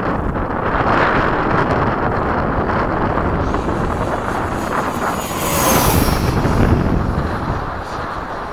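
Electric ducted-fan RC jet (90mm 12-blade fan on a 4082 inrunner motor) passing overhead: its high fan whine comes in a few seconds in, drops slightly in pitch as it goes by and fades near the end. Wind buffets the microphone throughout.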